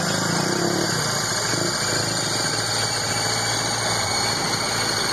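Motor vehicle engine idling steadily close by.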